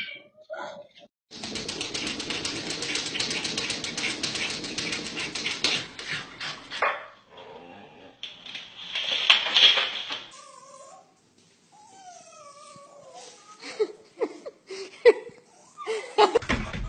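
Dogs and cats at play. First comes a long stretch of fast, scratchy rustling, then a short sharp burst, then a whining call that slides up and down in pitch, and scattered clattering near the end.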